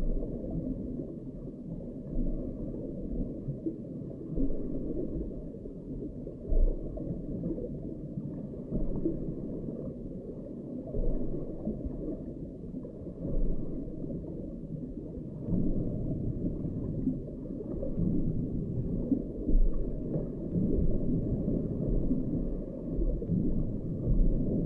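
Muffled underwater rumble heard through an underwater camera's microphone beneath lake ice, with a dull low thump every few seconds.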